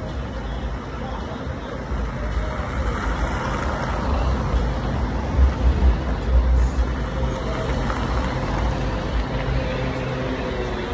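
City street traffic: a steady low rumble of passing vehicles that swells through the middle.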